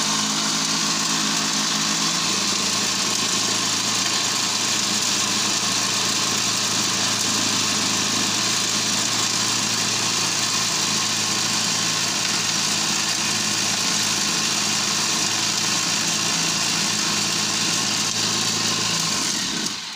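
Small electric feed-grinding machine running steadily under load as it grinds dry cassava peels to powder, a constant whine with a slight shift in pitch about two seconds in. It switches off at the very end.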